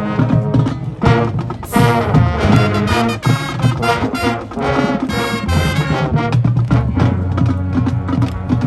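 High school marching band playing its field show: brass chords held over drums, with a loud full-band hit about two seconds in.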